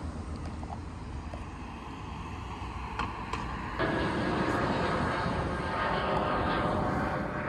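Steady low engine rumble that grows louder and fuller about four seconds in, with a faint whine riding on it.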